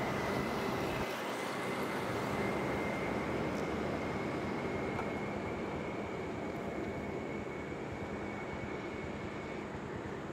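Road traffic on a forest highway: the engines and tyre noise of a bus and a tanker truck driving away, as a steady, slowly fading rumble and hiss. A thin, steady high-pitched tone runs over it and stops near the end.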